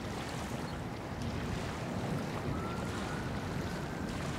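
Wind buffeting the microphone over a steady outdoor rumble at the waterside, with a faint thin whine that slowly rises in pitch starting about two and a half seconds in.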